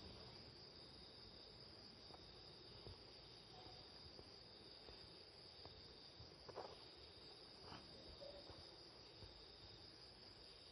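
Near silence, with a faint, steady, high-pitched insect trill and a few soft clicks.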